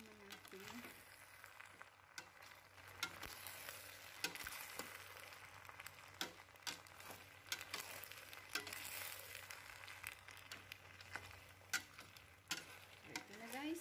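A utensil stirring creamy macaroni in a stainless steel pot, scraping and clicking against the pot many times over a faint steady sizzle as the dish simmers.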